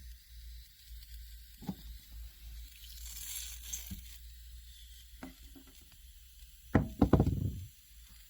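A few light knocks over a low hum, then a short burst of clattering knocks about seven seconds in: handling of equipment.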